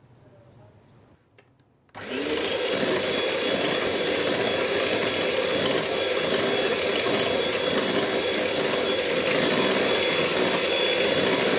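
Electric hand mixer switching on about two seconds in and running steadily, its beaters whipping a bowl of cream at low-to-medium speed.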